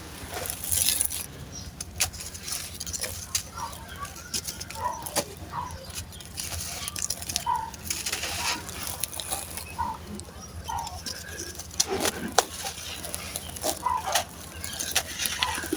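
Dry, gritty sand-cement chunks crumbling and crunching, with many sharp crackles and clicks, the loudest about 12 seconds in. Short pitched calls repeat in the background every second or so.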